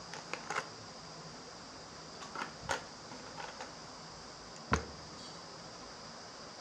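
Quiet room tone with a steady faint hiss, broken by a few short faint clicks, the clearest about three-quarters of the way through.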